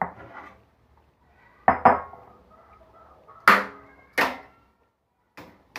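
Metal kitchenware clinking and clanking: a stainless bowl and a mesh strainer knocking against each other and a glass bowl, about six sharp knocks with a brief ring after each. Two come close together, two louder ones follow about a second later, and two lighter ones come near the end.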